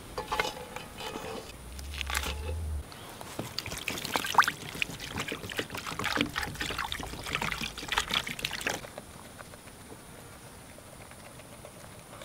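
Possum pieces set into a cast-iron Dutch oven, then water poured in from a plastic bottle, splashing and trickling over the meat. It stops about nine seconds in.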